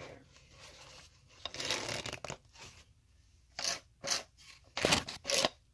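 Hairbrush bristles swept close to the microphone: a longer scratchy brushing swish, then several short quick strokes.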